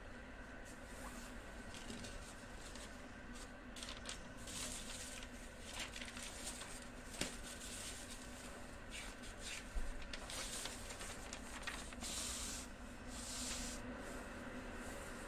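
Paper rustling and sliding in soft swishes as a sheet of red couplet paper is handled and laid on a felt mat, with two light taps partway through.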